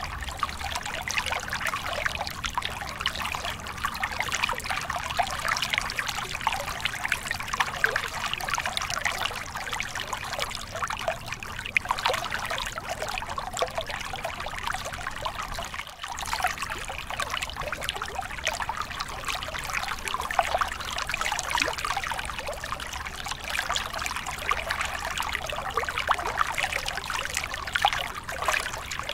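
Small mountain stream splashing down a short rocky cascade into a pool: steady trickling and splashing water, mostly light and bright with little low rumble, dipping for a moment about halfway through.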